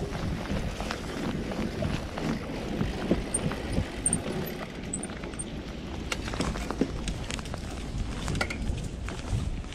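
Bicycle ridden over a bumpy dirt singletrack: a steady rumble of tyres on the trail with frequent clicks and knocks as the bike rattles over the bumps.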